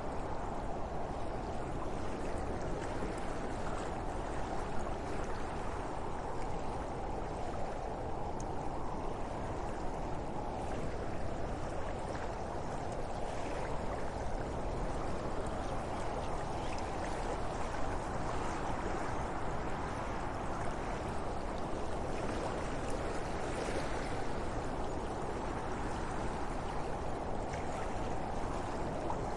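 Wind blowing steadily, a continuous rushing noise with no pauses.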